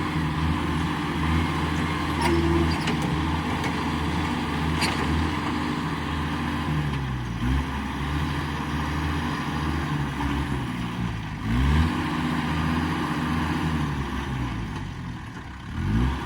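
A motor vehicle engine running steadily, its pitch dipping and then climbing again three times: near the middle, about two-thirds through, and at the end, as with throttle or gear changes.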